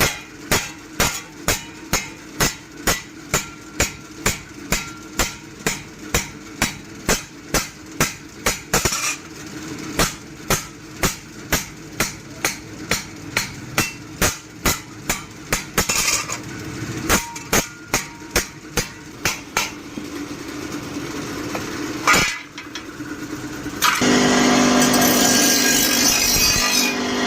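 Hand hammer striking a forage-cutter blade on the anvil in steady blows, about two to three a second, with brief pauses. One last heavy blow lands, and near the end a motor-driven machine starts running steadily.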